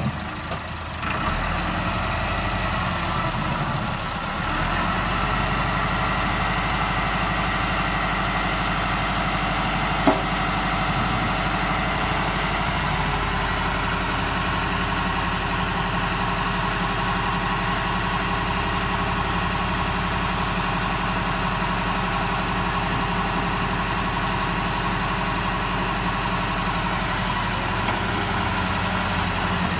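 Farm tractor's diesel engine running steadily as it moves a loaded tipping trolley, with the trolley bed being raised to dump soil near the end. A single sharp knock about ten seconds in.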